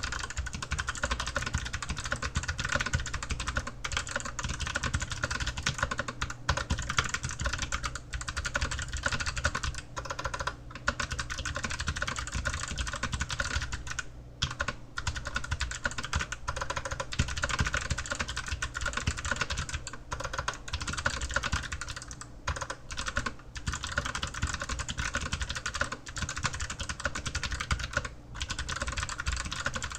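Fast, continuous typing on an Archon AK87 mechanical keyboard with Kailh Box White clicky switches, each keystroke a crisp click, with a few brief pauses.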